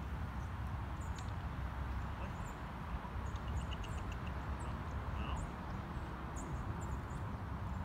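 Small wild birds chirping in short, high notes scattered throughout, with one quick trill of about seven notes a little past the middle, over a steady low outdoor rumble.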